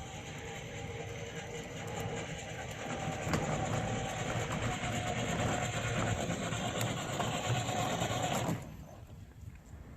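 Remote-control cooler's electric drive motors and wheels rolling on low speed under a full load of soda and ice, growing louder as it approaches. The sound cuts off abruptly about eight and a half seconds in as the run ends.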